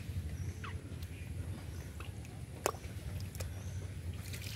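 A hand sloshing and squelching through shallow muddy water among grass, with small scattered splashes and clicks and one sharper click about two and a half seconds in.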